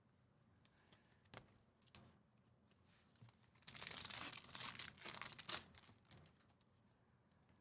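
Foil wrapper of a Topps Chrome baseball card pack crinkling and tearing open, in a stretch of about two seconds in the middle, after a few faint ticks of cards being handled.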